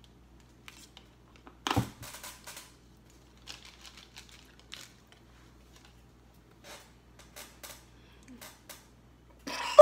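Jelly beans and the plastic BeanBoozled box being handled: scattered small clicks and rattles, with one louder knock about two seconds in.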